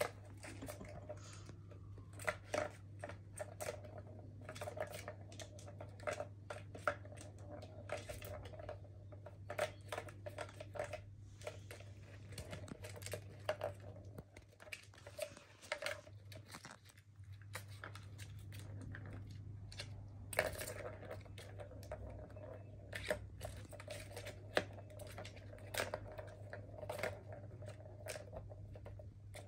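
Plastic balls rattling and rolling around the tracks of a three-tier plastic cat ball tower toy as kittens bat at them, an irregular run of clicks and knocks. A steady low hum sits underneath.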